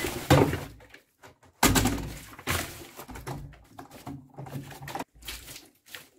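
Items being stuffed into a top-loading washing machine's steel drum: a series of separate thuds and knocks as things are dropped in and pushed down.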